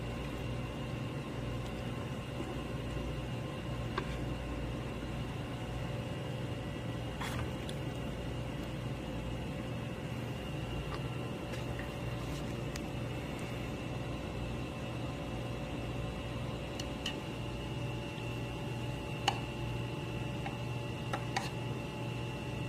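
Steady machine hum of a restaurant's room tone, holding several fixed tones, with a few light clicks of tableware, the last ones near the end.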